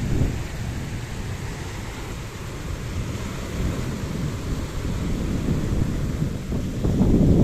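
Wind rumbling on the microphone over Black Sea surf: a low, uneven roar that swells louder near the end.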